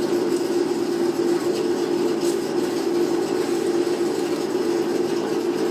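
A space heater in a garage running with a steady drone, a few faint ticks over it.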